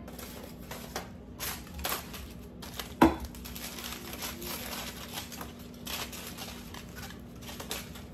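Aluminium foil crinkling and rustling in irregular crackles as it is handled around baked potatoes. There is a sharp knock about three seconds in.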